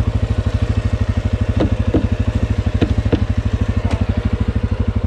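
ATV engine idling with a fast, even putter that holds steady and does not rev. A few light clicks sound over it.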